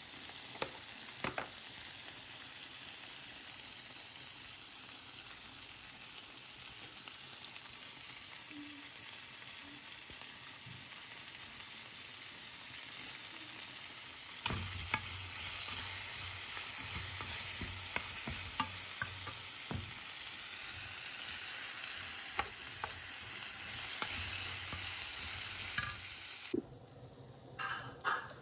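Pieces of liver sizzling in oil in a non-stick frying pan: a steady hiss with a few small pops that gets louder about halfway in. Near the end the sizzling cuts off and a few clinks of a fork against the pan follow as the liver is served.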